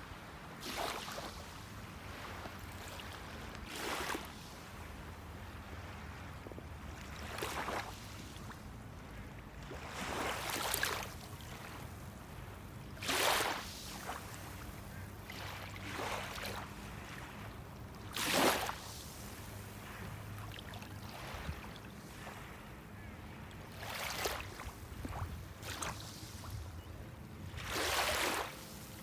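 Kayak paddle blades dipping into and pulling through the water, a splashy swish every two to four seconds, over a steady low rumble.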